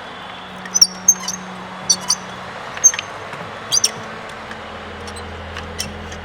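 Short, sharp metal clicks and clinks of a ratchet and spark plug socket working a spark plug out of the engine, about six in the first four seconds, some in quick pairs, over a steady low hum.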